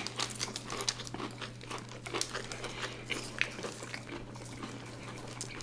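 Close-miked eating sounds: irregular crunching, chewing and mouth smacks as a crispy fried chicken sandwich is bitten into and chewed. A faint steady low hum runs underneath.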